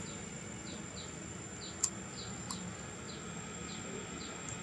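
Outdoor ambience: a short, high, falling chirp repeating about twice a second over a steady high-pitched whine and a low background hum. A single sharp click comes just under two seconds in.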